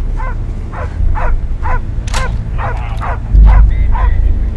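A dog barking repeatedly, about two barks a second, over a low steady rumble that swells into a deep boom about three seconds in.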